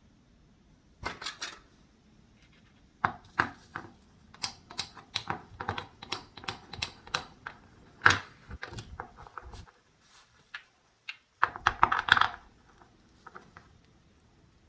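Plastic toy fruit and a plastic toy knife clicking and tapping on a small wooden cutting board as a toy pear is cut: a run of many quick clicks, the loudest about eight seconds in, then a denser rasping burst as the pear's halves are handled.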